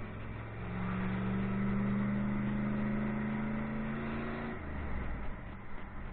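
Pontiac Trans Am's LT1 small-block V8 pulling under throttle with road noise, its note getting louder and rising slowly in pitch, then falling away about four and a half seconds in.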